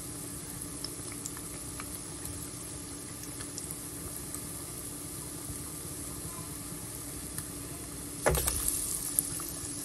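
Batter-coated boiled egg halves (egg bonda) deep-frying in a pan of oil: a steady bubbling sizzle with small crackles. A sudden louder burst of noise comes about eight seconds in.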